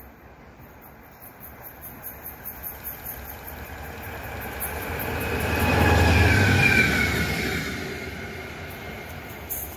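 A locomotive passing along the line: a rumble that grows as it approaches, peaks about six seconds in with a whine that drops in pitch as it goes by, then fades away.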